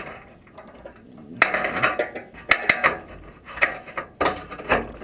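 Metal hand tools clinking and scraping against a windshield wiper arm's retainer clip while it is pried off: a string of sharp metallic clicks, each with a short ring.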